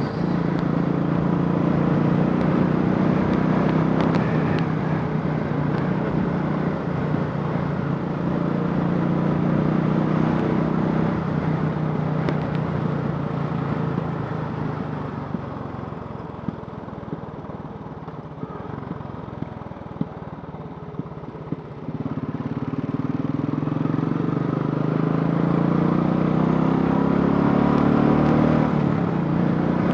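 Royal Enfield Classic 500's single-cylinder engine, converted from fuel injection to a carburettor, running under throttle. About halfway through the note eases off and goes quieter for several seconds, as if off the throttle. About 22 seconds in it picks up again, and the pitch climbs steadily, dips suddenly near the end, then climbs again.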